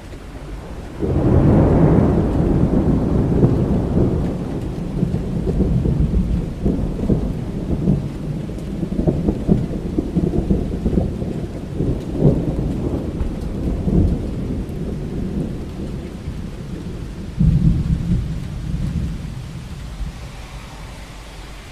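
Thunder over steady rain. A long roll breaks about a second in and rumbles on with crackling peaks for some fifteen seconds. A second, shorter peal comes near the end and dies back to the rain.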